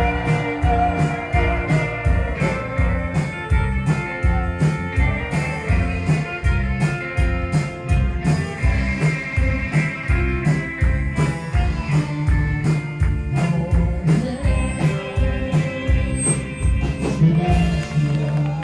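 Rock band playing: electric guitar, bass and drums with a steady beat, finishing on a held chord near the end.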